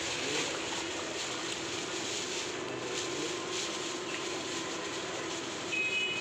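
Thin plastic carry bag rustling and crinkling as it is handled around a boxed cake, over a steady background hum. A brief high tone sounds near the end.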